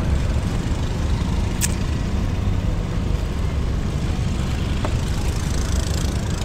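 A boat engine running steadily with a low rumble, with a couple of faint clicks in the middle.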